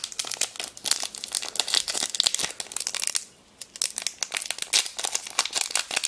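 Foil wrapper of a Pokémon TCG booster pack crinkling in the hands as it is handled and torn open, with a short lull a little past three seconds in.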